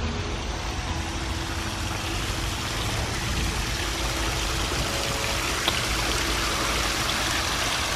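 Water spilling over a small tiered stone waterfall into a pond: a steady rushing and splashing that grows a little louder after a few seconds.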